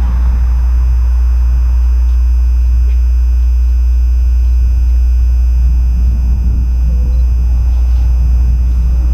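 Steady low rumble of wind on the microphone, with a fainter mid-low rumble that swells near the end as a commuter train approaches from far down the line.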